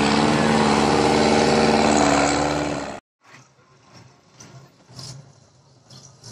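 Trial truck's diesel engine running hard at steady high revs under heavy load in deep mud, cut off abruptly about three seconds in. After that a much fainter engine runs low, with a few short sharp knocks.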